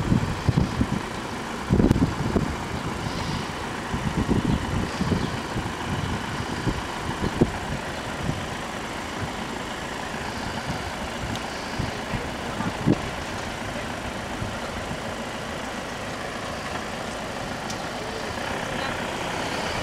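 Motor vehicle engines running steadily, with a few low thumps in the first half.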